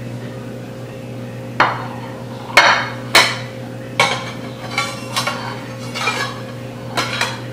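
Ceramic plates and a metal cake server clinking and knocking against each other and a stone countertop: four sharp knocks in the first four seconds, then softer clinks, over a steady low hum.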